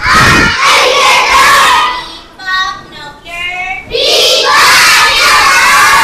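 A class of young children reciting a lesson aloud together in a loud chorus, in two long stretches with a short break between.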